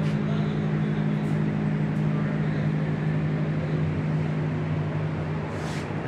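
A steady low mechanical hum under a constant background din, with faint voices mixed in.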